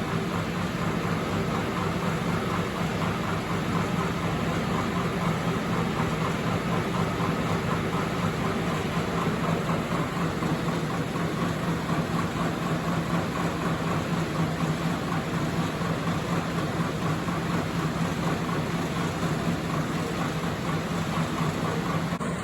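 Suiden industrial electric fan running steadily, with a low hum and a wavering higher whir over the rush of air: the abnormal noise the fan has developed.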